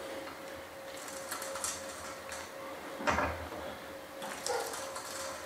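Helicoil thread tap being turned by hand in a tap wrench, cutting a new, larger thread into a drilled sump drain-plug hole: scattered scraping and creaking clicks, with a louder knock about three seconds in.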